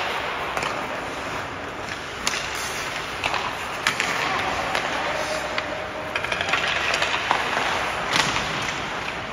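Ice hockey practice: skate blades scraping the ice, with a few sharp cracks of sticks striking pucks.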